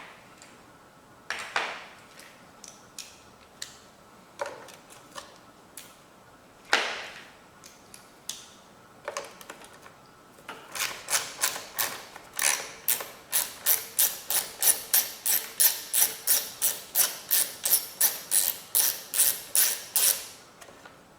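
Ratchet wrench working bolts loose on a mower's air box. First come a few scattered clicks and knocks, then about halfway in a steady run of sharp clicks, about three a second, for some ten seconds.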